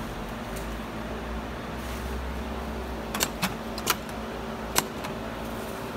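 Four sharp metallic clicks, between about three and five seconds in, as fabric is set into the metal clamp frame of a programmable pattern tacker sewing machine, over a steady low hum.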